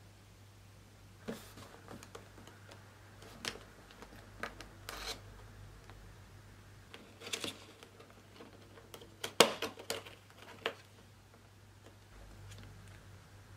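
Cardboard product box being opened by hand: scattered soft clicks, scrapes and crinkles as the end flap and tuck tab are worked free, with a louder cluster of crackles about nine and a half seconds in. A faint low hum runs underneath.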